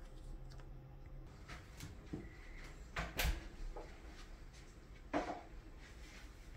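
Bagged-and-boarded comic books being handled and set down on a table: plastic sleeves rustling and short knocks as the boarded comics land. The loudest knock comes about three seconds in, another a little after five seconds.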